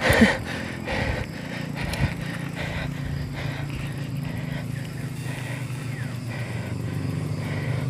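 A motor vehicle engine running steadily, growing a little louder toward the end, with a few scattered knocks.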